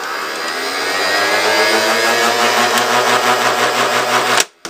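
Small electric motor of a vintage toy ball shooter whirring steadily as it is tested, growing slightly louder, then cutting off suddenly near the end.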